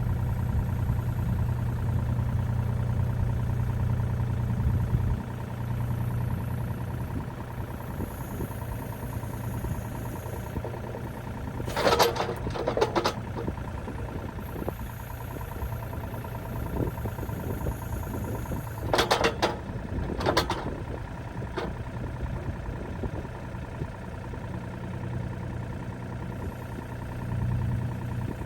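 An engine idling steadily, a little louder for the first few seconds, with a few short harsh noises breaking in about twelve, nineteen and twenty seconds in.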